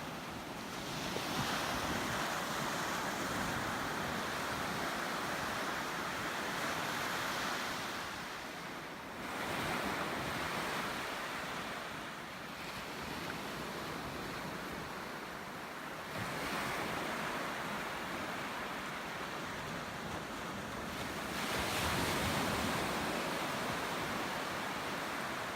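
Ocean surf: waves breaking and washing in, swelling about four times, with wind buffeting the microphone.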